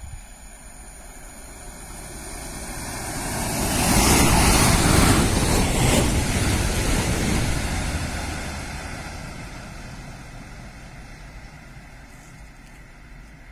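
Electric passenger train passing beneath the bridge: a rush of wheel and air noise that builds, is loudest about four to seven seconds in, and fades away as the train recedes.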